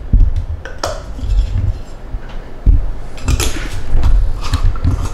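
Spice shaken from a small jar over raw chicken in a glass bowl: a few short shaking strokes and light clicks of the jar, over a steady low hum.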